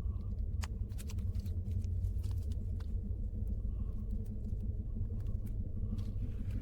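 Deep, steady rumble with scattered faint clicks and ticks over it.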